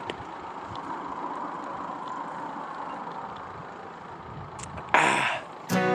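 Steady road noise from a vehicle passing on the road, with a brief loud noise about five seconds in. Strummed acoustic guitar music starts near the end.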